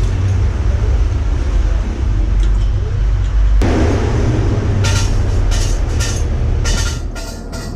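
Highway traffic with a heavy vehicle's low engine drone going by, easing off near the end. A run of short sharp clicks or knocks comes in the last few seconds.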